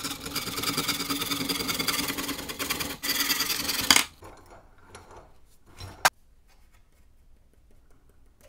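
Fine-toothed hand saw cutting through a dried bamboo cane clamped in a vise, fast steady rasping strokes that stop with a sharp snap about four seconds in as the cut goes through. Then light handling of the cut piece and a single sharp click about six seconds in.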